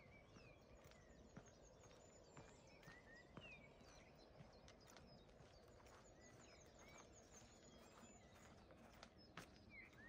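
Faint birdsong, with many short chirps and a high rapid trill twice, over a low steady rush. Footsteps on a path sound at uneven intervals, roughly once a second.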